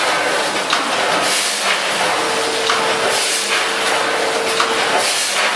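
Steady hissing noise. A faint steady tone sounds through the middle of it.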